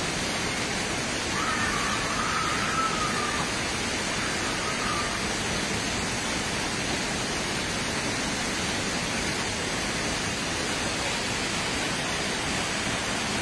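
Small waterfall pouring down a rock face onto rocks and into a shallow pool: a steady, unbroken rush of falling and splashing water.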